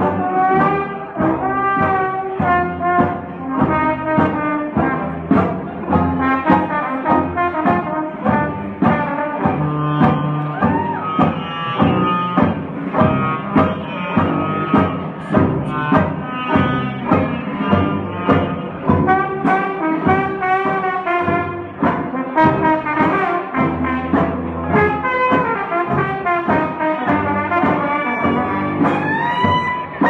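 Live jazz band playing an instrumental, with clarinet, trombone and trumpet leading over strummed banjos and drums in a steady beat.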